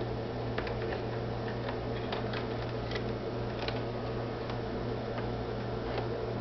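Small irregular clicks and ticks of hands working at a Pfaff 2170 embroidery and sewing machine while it is being rethreaded, over a steady low hum.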